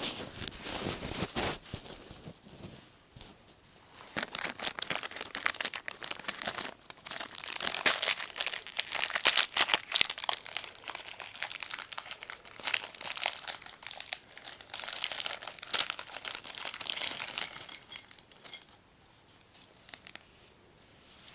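Plastic packaging being handled: crinkling and rustling in dense crackly spells, dying down near the end.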